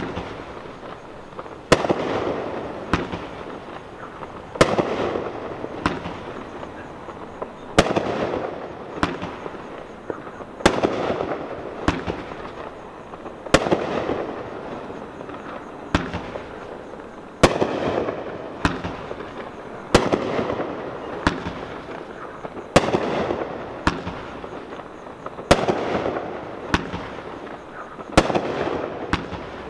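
A 40-shot, 500-gram consumer firework cake (repeater) firing shot after shot. Sharp reports come about every one and a half seconds, each followed by a fading tail.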